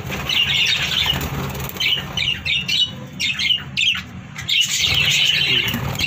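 A colony of budgerigars chattering, with many short overlapping chirps, thinning briefly about three to four seconds in, over a steady low hum.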